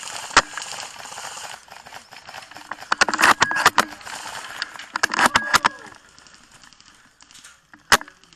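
Airsoft gun noise: bunches of sharp clicks and rattles a couple of seconds apart, then a single sharp crack about 8 seconds in.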